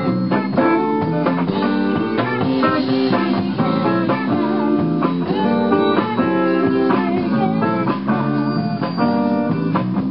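Live band playing a bluesy rock number in a rehearsal studio, with electric guitars to the fore.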